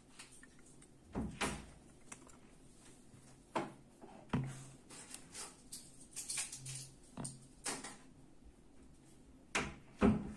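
Handling noises of small parts on a silicone work mat: scattered clicks and knocks as a plastic solenoid valve and brass pipe fittings are turned over and fitted together, with a louder knock near the end.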